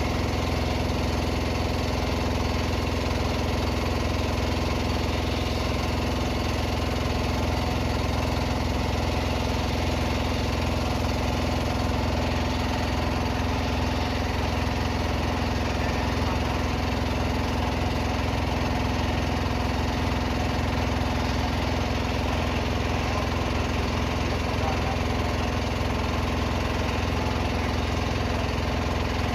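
An engine running steadily at a constant speed, its pitch and level unchanging throughout.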